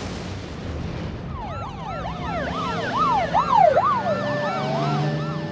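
Several emergency-vehicle sirens wailing together, their rising and falling sweeps overlapping, starting about a second and a half in. Before them there is a rushing storm rumble left over from a lightning crash.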